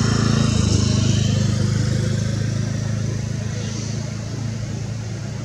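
A motor vehicle's engine running with a low, steady hum, loudest about a second in and then slowly fading.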